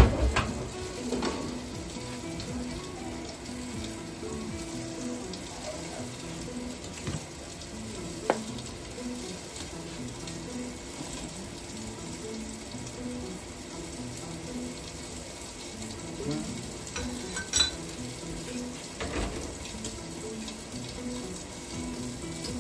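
Fish frying in a frying pan, sizzling steadily, with a few sharp clinks of a utensil against the pan.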